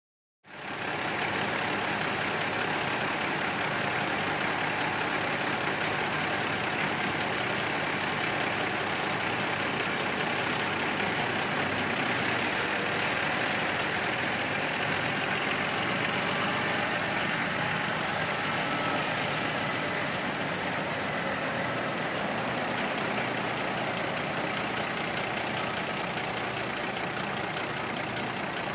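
Large diesel work truck engines idling steadily, fading in at the very start.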